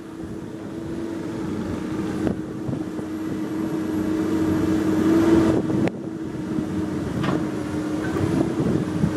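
Komatsu PC200 hydraulic excavator's diesel engine running at a steady working speed and growing louder, with three short knocks.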